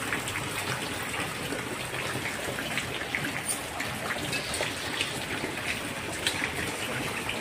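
Heavy rain falling steadily into a flooded mud courtyard, with scattered drips and splashes of water leaking from the tin roof.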